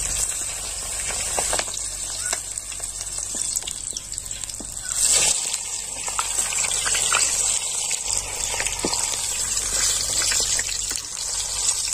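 Chicken leg pieces sizzling steadily as they deep-fry in hot oil in an aluminium kadai, with scattered sharp crackles and clicks.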